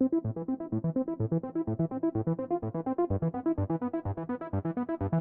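Intro music: fast, evenly repeating synthesizer or electric-piano notes.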